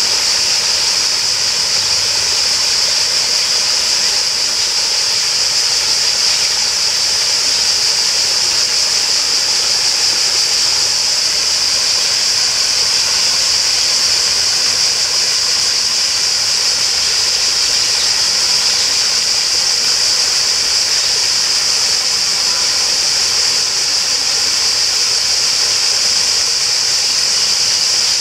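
Steady rush of running water, unbroken throughout, with a strong high hiss.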